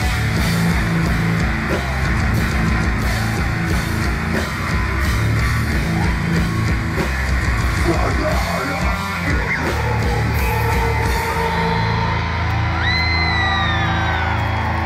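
Live metalcore band playing: distorted guitars, bass and drums at full volume. About eleven seconds in the drumming stops and a held chord rings out, with high gliding tones over it.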